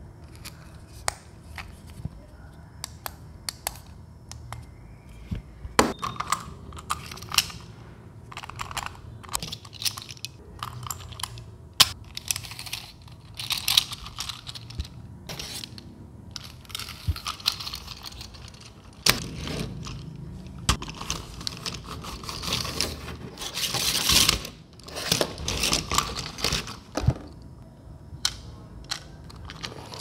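Hands handling a plastic remote-control toy snake and its parts: scattered sharp clicks and taps, with stretches of scraping and crinkling that come thicker in the second half.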